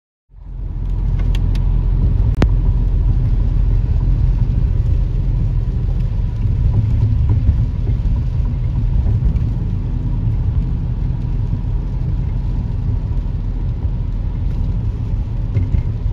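Steady low rumble of a car driving on a wet road, heard from inside the cabin. It starts abruptly just after the beginning, with a few faint clicks in the first couple of seconds.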